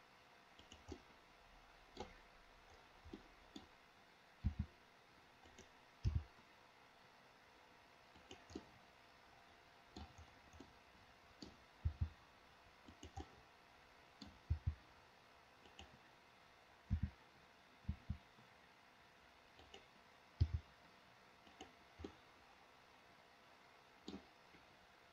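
Computer mouse and keyboard clicks at irregular intervals, many in quick pairs.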